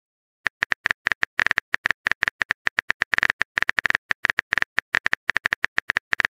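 Phone keyboard typing sound effect: a rapid, irregular run of short key clicks as a text message is typed out, starting about half a second in.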